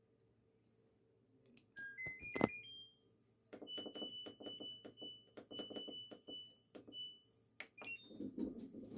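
LG top-loading washing machine playing its end-of-cycle tune in electronic beeps, signalling that the wash has finished: a quick rising run of notes about two seconds in, then a longer melody of beeping notes that stops near the end.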